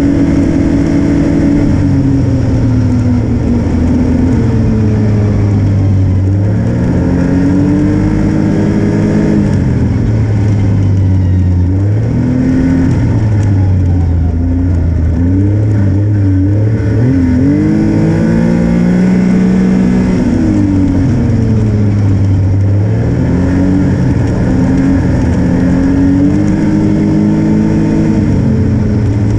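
Snowmobile engine running under way, its pitch rising and falling over and over as the throttle is opened and eased along the trail.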